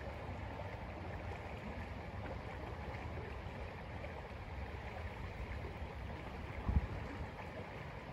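Shallow river flowing past, a steady rush of running water. A single short low thump comes near the end.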